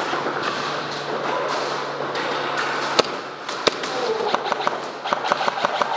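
Airsoft guns firing indoors: two sharp cracks about a second apart midway, then a quick even string of shots near the end, over a steady background noise.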